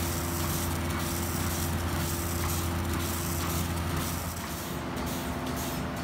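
Pipeline milking machine running on a dairy cow: a steady drone from the vacuum system, with a faint hiss pulsing about twice a second from the pulsator. The low drone eases about four seconds in.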